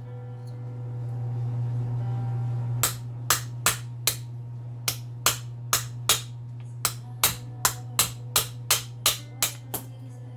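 Hammer blows on an old furnace blower motor, beating a stuck part out of the housing: about sixteen sharp metal strikes at two to three a second, starting about three seconds in, over a steady low hum.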